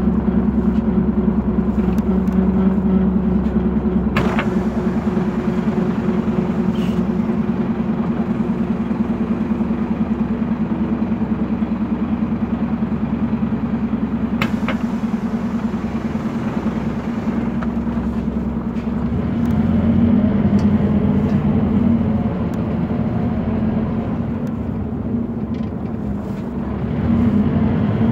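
Scania K230UB city bus's Scania DC9 diesel engine running, heard from inside the bus as a steady low drone. There are two sharp clicks, one a few seconds in and one about halfway. The drone dips and then grows louder near the end.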